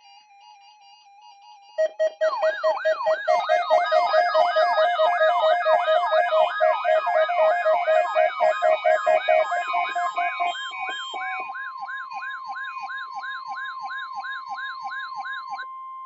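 Weather alert radio alarm: several electronic siren wails rise and fall about twice a second, overlapping, with a pulsing lower tone, starting about two seconds in. From about ten seconds in, a steady tone near 1 kHz, the NOAA Weather Radio warning alarm tone, sounds under quieter wails until all of it cuts off at the end.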